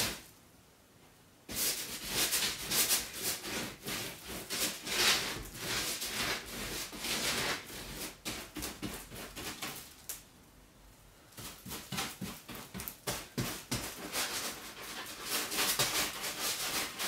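Paintbrush scrubbing PVA glue onto expanded polystyrene and the frame, a steady run of scratchy brush strokes. The strokes start about a second and a half in and pause briefly about ten seconds in.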